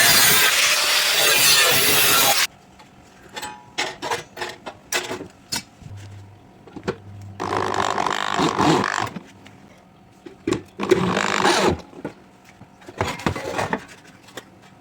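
Metalworking on sheet metal for a gate: a loud, continuous tool noise that cuts off suddenly about two and a half seconds in, then scattered clicks and knocks and three short bursts of noise.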